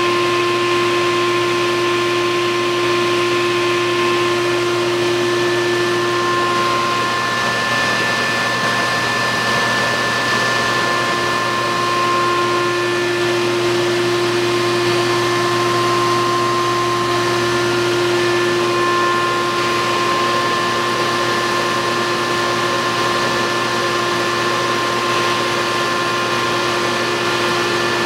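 Vacuum-powered grooming brush running steadily as it is worked through a dog's coat: an even motor hiss with a steady whine, one lower note of which drops out for a few seconds about a quarter of the way in.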